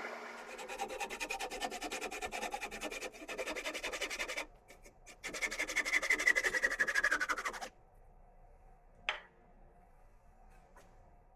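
Sandpaper rubbing on driftwood spinning on a wood lathe, a fast, even scratching pulse with each turn. It breaks off briefly about halfway, comes back with a whine falling in pitch, and stops sharply about eight seconds in, followed by two faint clicks.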